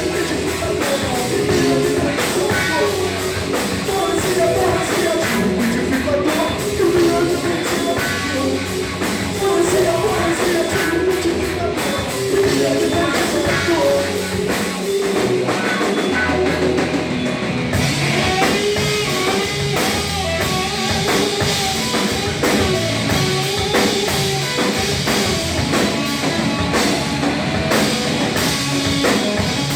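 Hardcore punk band playing live: electric guitar, bass and drum kit with sung vocals. The low end drops out briefly past the middle, then the full band comes back in.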